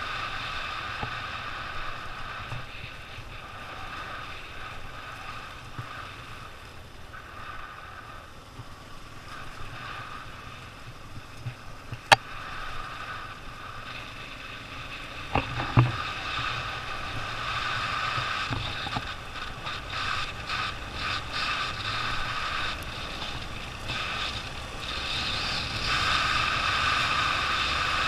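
Motorcycle being ridden on a dirt trail: steady engine running and wind noise, with a sharp knock about twelve seconds in and a few more knocks around sixteen seconds in, like the bike jolting over bumps.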